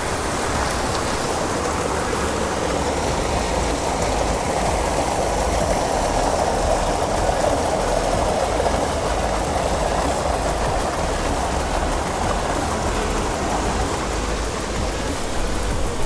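Waterfall: a steady rush of falling water, swelling slightly a few seconds in.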